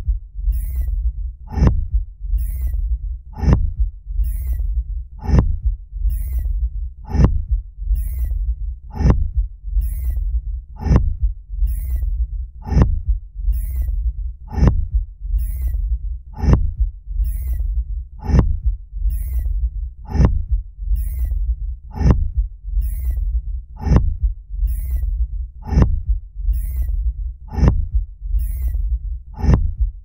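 Fremen thumper sound effect: a heavy stake beating the sand in a steady rhythm of about one thump a second, over a constant deep rumble, each thump trailed by a short high rattle of sand.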